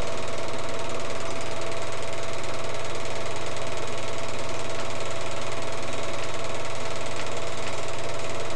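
Film projector running: a steady, fast mechanical clatter with a constant hum and a steady tone underneath.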